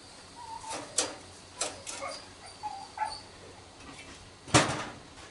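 Screwdriver prying a ring magnet off a microwave's magnetron: a string of sharp metal clicks and knocks, the loudest about four and a half seconds in, with a few faint short high whines between them.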